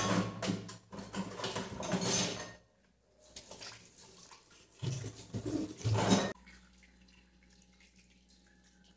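Kitchen tap water running into a stainless steel sink and splashing over hands and a bowl of peeled cassava pieces being rinsed. It comes in two loud spells, the second stopping about six seconds in, after which only a faint steady hum remains.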